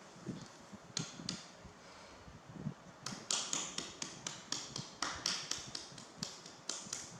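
Light clicking taps: a pair about a second in, then a steady run of about four a second from about three seconds in.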